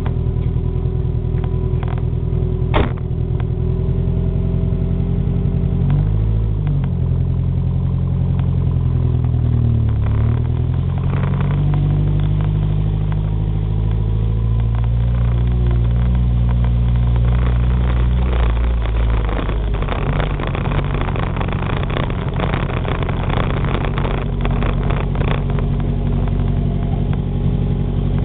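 1973 Renault 6 TL's four-cylinder engine running at low revs, its pitch rising and dipping a few times as the car pulls away and creeps along. A single sharp knock about three seconds in, and a patter of short crackles in the second half.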